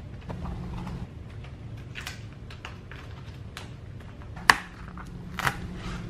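Light taps and clicks of hands handling a whole cabbage on a wooden cutting board, with one sharp knock about four and a half seconds in and a smaller one a second later, over a steady low hum.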